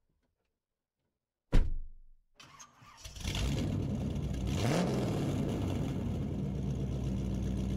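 A sharp hit about a second and a half in, then a car engine starting and running steadily, with a brief rise in pitch near the middle. It plays over the channel's outro logo as an added sound effect.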